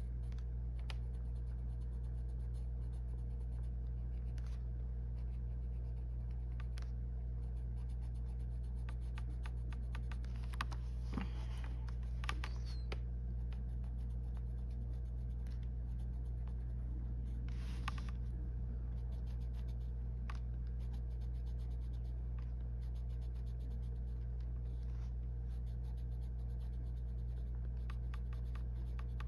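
Arteza coloured pencil scratching on colouring-book paper in a run of short, quick strokes, with a few louder strokes around the middle, over a steady low hum.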